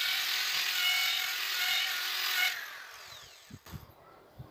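Power drill spinning a eucalyptus rod through a dowel-making jig, the jig's blade shaving it down to a round 14 mm dowel. About two and a half seconds in the drill stops and its whine falls away as it winds down, followed by a few faint knocks.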